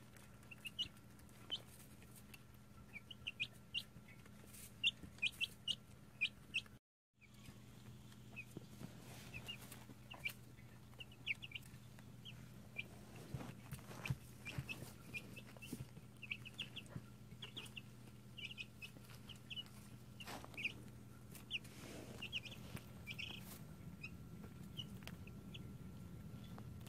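Two- to three-week-old chicks peeping in many short, high cheeps, with a low steady hum underneath. The sound cuts out for a moment about seven seconds in.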